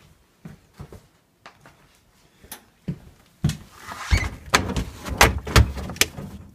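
Freezer wire basket and plastic sample bottles being handled: a few light clicks at first, then from about three and a half seconds in a run of sharp clacks, knocks and rattles as the bottles are set down among the wire shelving.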